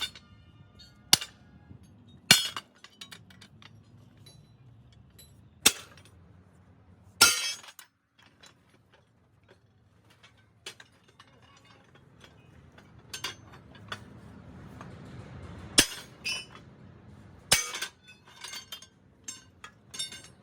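Sharp metallic clanks and clinks from steel excavator track-chain parts being struck and handled, coming irregularly a second to several seconds apart, with a short ringing after a strike near the start.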